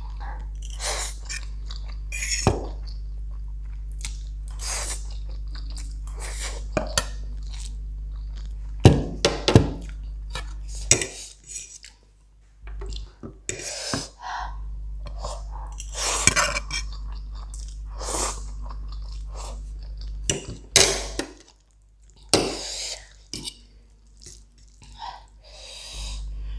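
Close-up eating sounds: a metal fork clinking and scraping on ceramic plates and mouth chewing of noodles, in many short, irregular bursts over a steady low hum.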